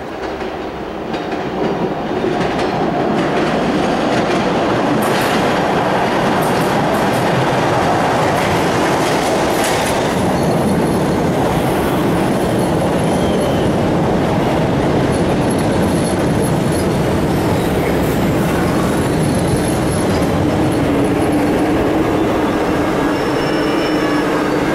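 An MBTA Red Line subway train runs along the station platform: a loud, steady rumble of wheels on rail that builds over the first few seconds, with scattered knocks. A steady whine comes in over the last few seconds.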